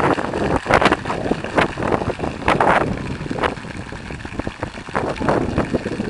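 Crowd of football supporters chanting in the stand, with wind buffeting the microphone in irregular gusts.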